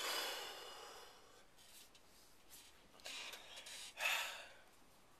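A man breathing hard against the burn of a hot chili pepper. It opens with a loud hissing exhale through pursed lips that fades over about a second, then comes a sharper breath about three seconds in and a loud hiss through clenched teeth about four seconds in.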